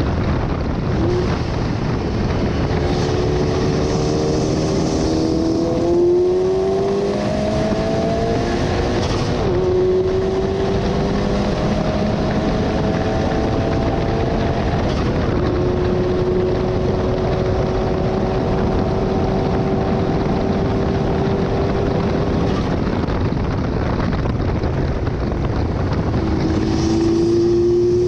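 KTM X-Bow's turbocharged Audi 2.0-litre four-cylinder at full throttle, heard from the open cockpit. The engine note climbs through the gears with upshifts about six and nine and a half seconds in, holds steady at top speed, then drops away under braking near the end, over heavy wind and road noise.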